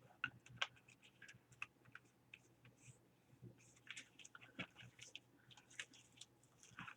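Near silence with faint, irregular little clicks and taps of small objects being handled.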